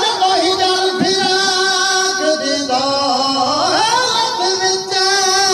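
A man singing a Punjabi song into a handheld microphone, holding long drawn-out notes with a wavering pitch that climb a little after three and a half seconds in.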